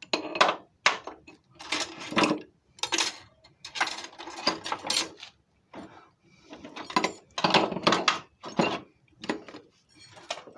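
Small metal lathe tooling and parts clinking and clattering as they are handled and rummaged through in a box: many short rattles and clanks coming irregularly, some of them loud.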